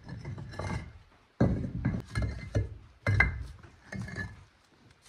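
Fired clay bricks knocking and clinking against one another as they are prised up from the floor of a brick-lined fire pit and stacked. There are a handful of separate hard knocks about a second apart, some with a short ring.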